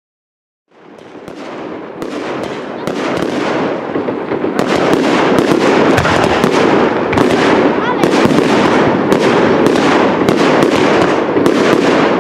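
Fireworks show finale: a dense, continuous barrage of shell bursts and crackle that begins about a second in. It builds over the next few seconds, then stays loud, with sharp bangs several times a second over a steady crackling roar.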